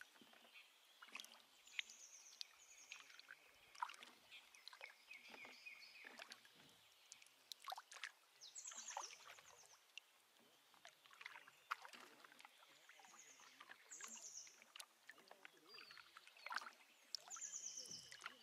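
Faint sounds of a canoe being paddled: scattered light knocks and drips of water, with short high chirps recurring every few seconds.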